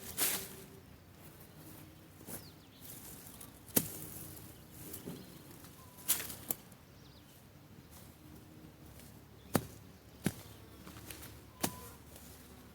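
A hand blade chopping through weeds and grass in short, sharp strikes, about nine of them at irregular intervals of one to two seconds.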